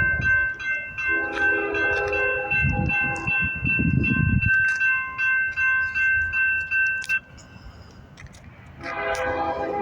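Norfolk Southern freight locomotive horn blowing as the train passes: one blast about a second in and another starting near the end, over a heavy rumble of the train around three to four seconds in. A steady high ringing runs under it and cuts off suddenly about seven seconds in.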